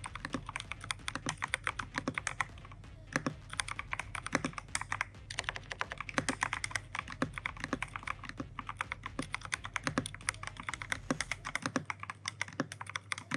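Fast typing on a VGN N75 gasket-mount mechanical keyboard with VGN tactile switches and double-shot PBT keycaps: a dense, steady stream of keystroke clacks, with a brief pause about three seconds in.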